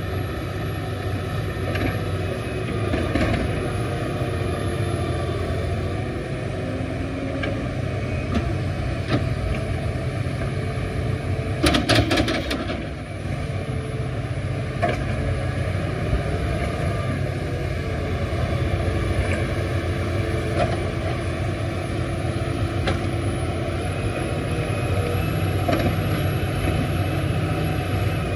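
Diesel crawler excavators running under load while digging, a steady engine drone with hydraulic whine that rises and falls in pitch. Scattered single knocks run through it, with a loud cluster of sharp knocks about halfway through.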